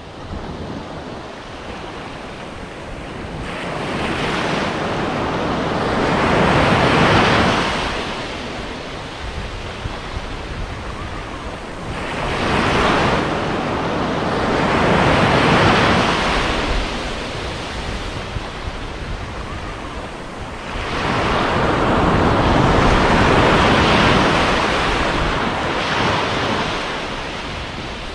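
Sea waves washing onto a beach in three slow surges, each swelling up and falling away over several seconds.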